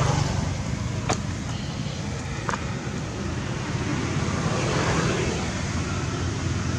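Steady low engine rumble, like road traffic running nearby, with a sharp click about a second in.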